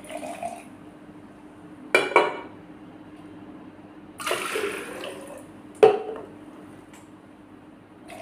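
Water poured in short spells from a stainless steel jug into a glass jar, with clinks and knocks of metal and glass: a double clink about two seconds in and the sharpest knock near six seconds.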